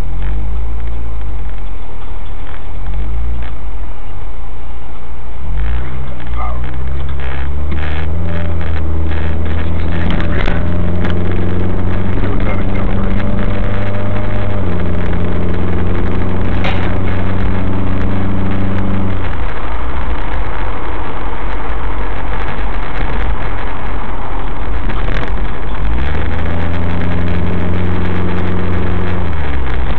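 Suzuki SX4's four-cylinder engine breathing through a K&N Apollo cold air intake, heard loud inside the cabin as the car pulls away and accelerates: the engine note climbs, steps in pitch, eases off, then climbs again near the end, over steady road noise.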